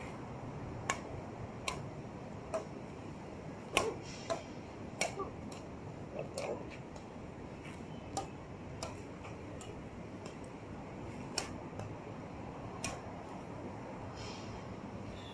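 Badminton rackets striking a shuttlecock: about a dozen sharp pops at irregular intervals, often about a second apart, over a steady low background noise.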